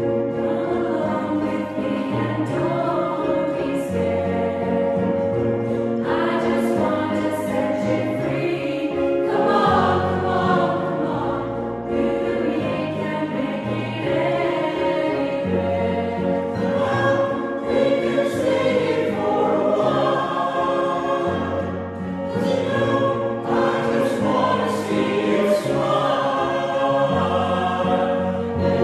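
A choir singing a pop ballad over a steady instrumental backing with a sustained bass line.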